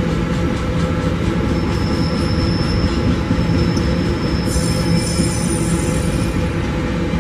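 Empty iron-ore wagons of a long freight train rolling past, a steady rumble of steel wheels on rail. High-pitched wheel squeal sets in about one and a half seconds in, and a cluster of higher squeals joins it for about two seconds in the second half.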